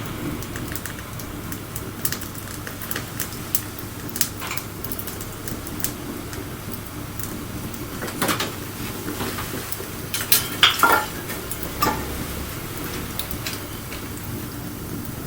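Wood fire crackling, with irregular sharp pops and snaps over a steady low rush of burning, and a louder burst of snaps about ten seconds in.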